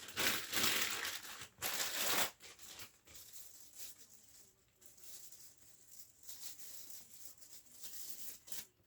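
Packing material crinkling and rustling as parts are handled and pulled out of a box. It is loudest in two bursts over the first two seconds, then goes on as softer, intermittent rustling that stops near the end.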